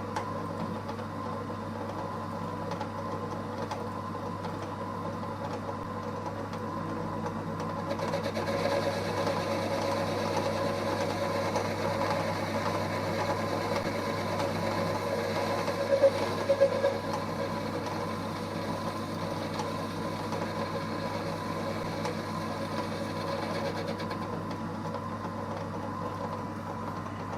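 EMCO Compact 5 benchtop lathe running steadily while the tool takes a light cut off the workpiece surface. The sound gets louder and brighter from about eight seconds in and settles back near the end, with a few sharp ticks around the middle.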